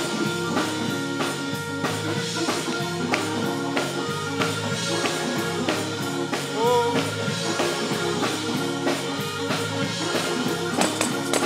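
Live gospel praise band playing an up-tempo instrumental on keyboard, guitar and saxophone, with a tambourine struck in a steady beat.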